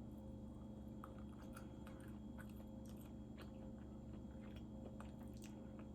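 A person chewing food: soft, irregular mouth clicks and smacks.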